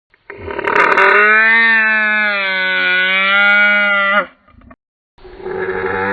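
Homemade dinosaur sound effect: one drawn-out call of about four seconds, holding a steady pitch with slight wavering before it cuts off sharply. A second call begins about a second later.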